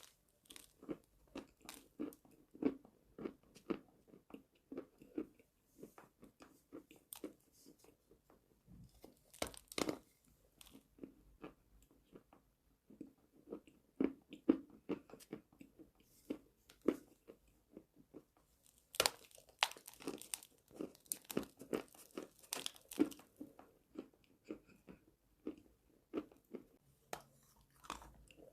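Close-miked ASMR eating of chalk: a few sharp bites, about ten and nineteen seconds in, each followed by steady crunchy chewing.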